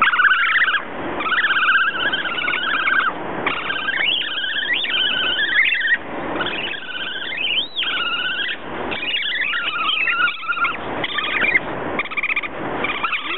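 Two Eurasian otters squealing at each other in a near-unbroken run of high, wavering squeals, with one sharp rising-and-falling squeal about halfway through. It is the noise of a tense meeting between two otters, which may be a fight or rough play.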